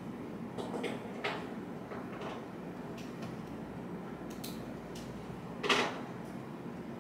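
Library room ambience: a steady hush with scattered light knocks and clicks, and one sharper knock a little before the end.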